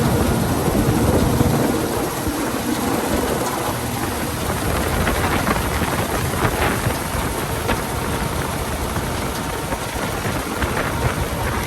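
Farm harvest machinery running steadily, a continuous engine drone with a few faint clicks or rattles.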